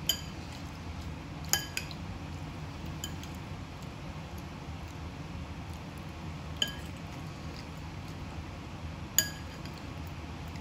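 Metal fork clinking against a ceramic bowl, a handful of short ringing clinks spread out, the loudest about nine seconds in.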